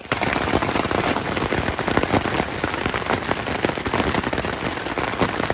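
Hail and heavy rain pelting a OneTigris Scaena tent, heard from inside: a dense, rapid patter of sharp ticks on the fabric that never lets up.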